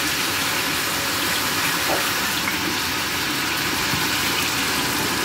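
A hot skillet of zucchini in tomato sauce hissing and bubbling steadily, with water just added to the pan.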